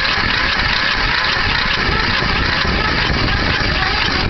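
Cold 11 hp Yard Boss riding mower engine being cranked over on its starter with a steady, even churn, not catching, and cutting off suddenly at the end.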